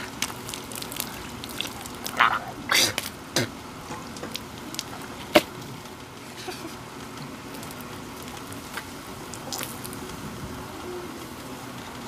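Water splashing as it is poured from a plastic mug over a hand onto dirt ground, with a few short spatters about two to three seconds in and a single sharp click near the middle.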